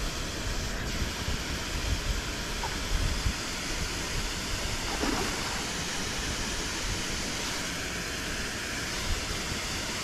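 Steady rushing of river water from a waterfall or rapids, an even hiss-like roar.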